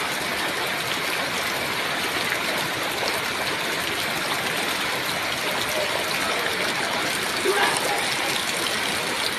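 Floodwater rushing through a street in a steady, unbroken flow.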